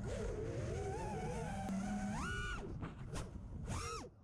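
FPV freestyle quadcopter's brushless motors whining, the pitch wavering, then jumping up sharply about halfway through and again near the end as the throttle is punched and cut through a flip and roll, over a steady rush of propeller wash and wind.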